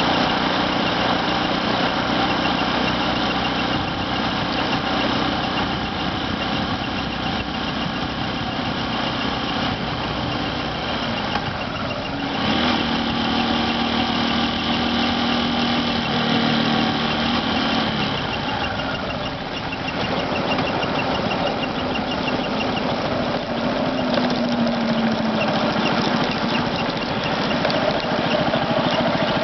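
Motorcycle engine idling, with the abnormal squeaky 'kiko-kiko' noise that the bike is making.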